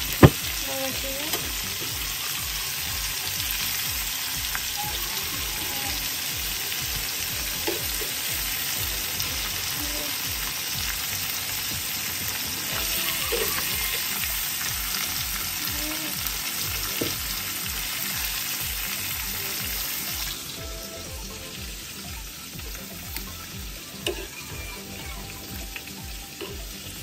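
Battered shrimp frying in hot oil in a pan: a steady sizzle, with a sharp knock just after the start and light clicks of metal tongs as the shrimp are turned and lifted out. The sizzle drops away about twenty seconds in, leaving only quieter clicks.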